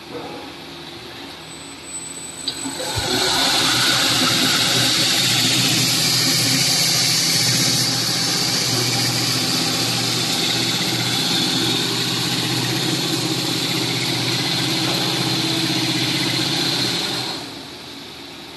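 Semi-automatic stretch-film rewinder starting up about three seconds in and running steadily, a loud hiss over a low hum as the film winds onto the roll, then running down near the end.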